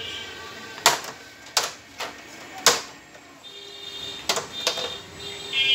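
A series of sharp clicks and knocks as LED TV parts are handled during disassembly, about six in all at uneven gaps. About halfway through, a faint high-pitched tone comes in under them and grows louder near the end.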